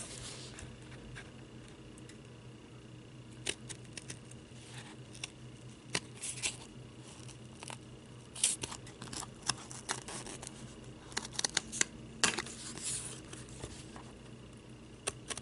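Scissors cutting slowly through medium-weight cardboard: irregular snips and short crunches in scattered clusters, with pauses as the piece is turned. The user thinks the blades might be getting dull and due for sharpening.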